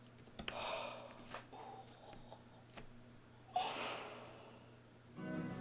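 A woman's sharp gasp about three and a half seconds in, after a few faint clicks and soft breaths, as she reacts in surprise. Soft guitar music starts near the end.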